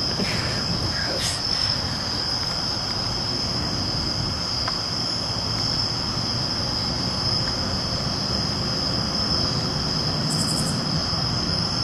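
Crickets trilling steadily in one continuous high-pitched note, over a steady background hiss.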